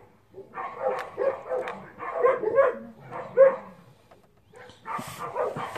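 Dogs barking, a quick run of short barks lasting about three seconds, then a pause and a few more barks near the end. A brief rustle about five seconds in.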